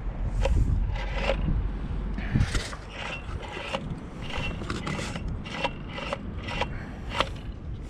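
Hand work on a fuel pump assembly: an irregular string of small sharp clicks and scrapes as a small clamp is fitted, with low handling bumps during the first couple of seconds.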